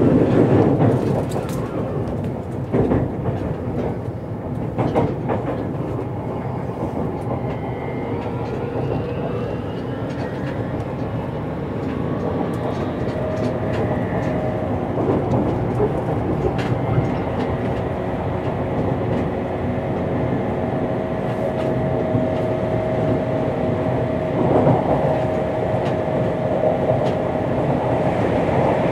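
JR Kyushu 303 series electric train heard from inside a motor car while running: a steady rumble of wheels on rail with a few wheel clacks in the first several seconds. Its Hitachi VVVF inverter gives a faint whine that rises in pitch from about a third of the way in, then holds steady tones.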